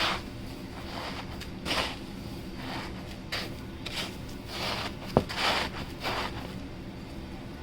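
Battered chicken pieces being pressed and rolled in crushed cereal crumbs, giving short crunchy rustles every half second to a second, with one sharp click about five seconds in.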